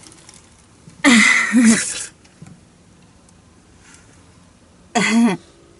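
A person's wordless, hesitant vocal sounds in a quiet car cabin: a breathy, wavering "uhh" of about a second starting about a second in, and a short one near the end.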